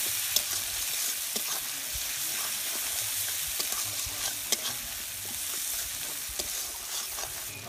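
Onion and ground-spice masala frying in oil in an aluminium kadai, a steady sizzle, while a metal spatula stirs it, scraping and knocking against the pan now and then.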